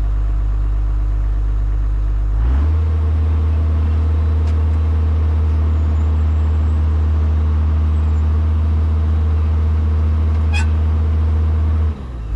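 Diesel engine of a Kobelco SK250 LC excavator running. A couple of seconds in its note shifts to a stronger, steady hum, which holds until near the end and then drops back, with a single click partway through.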